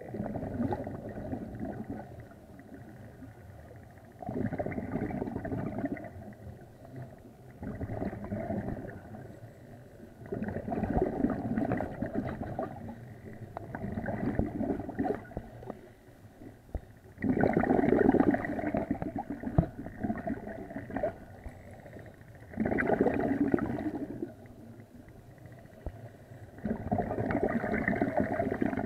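Scuba divers breathing through their regulators underwater: exhaled bubbles bubbling out in bursts a second or two long, about every three to four seconds, with quieter stretches between.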